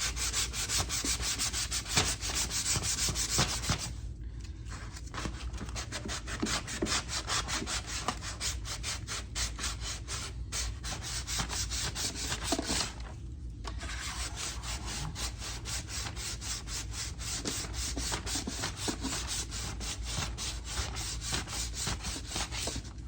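Hand block-sanding of guide-coated primer on a car's fender with 400-grit sandpaper: quick, even back-and-forth rubbing strokes, paused briefly twice.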